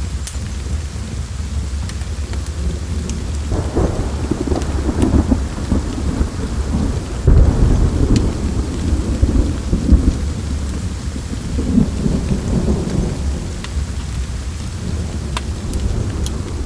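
Steady rain with a long rolling thunder rumble that builds a few seconds in, is loudest around the middle, and dies away near the end. A few sharp crackles sound over it.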